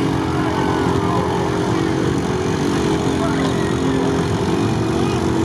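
Off-road vehicle engines running steadily at low revs: a lifted 4x4 on huge mud tyres, with a quad bike passing close by.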